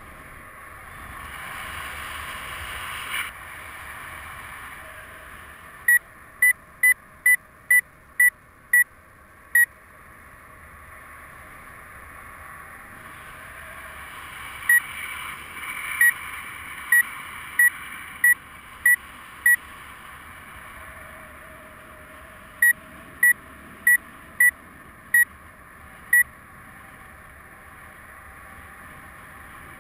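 Flight variometer on a paraglider beeping in three runs of short high beeps, about two a second, the sign that the glider is climbing in rising air. A steady rush of wind on the microphone runs underneath.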